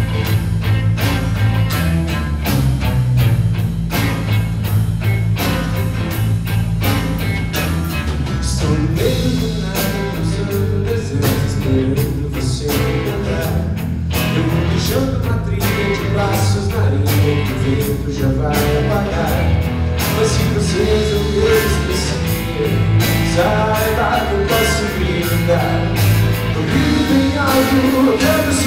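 Live rock band playing: drum kit, bass guitar and electric and acoustic guitars, with a melodic lead line over them from about nine seconds in.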